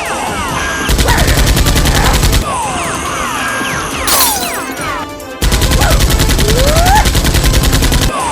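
Two long bursts of rapid automatic gunfire, the first about a second in and the second, longer one past the middle, with music running underneath.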